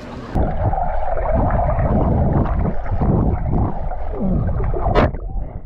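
Swimming-pool water heard through a camera held underwater: a muffled, low rushing and gurgling of moving water with the high end cut off, which starts suddenly just after the camera goes under. A sharp splash comes about five seconds in.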